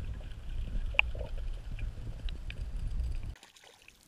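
Muffled low rumble of water heard through an underwater camera, with a sharp click about a second in and a couple of faint ticks after it; it cuts off suddenly near the end.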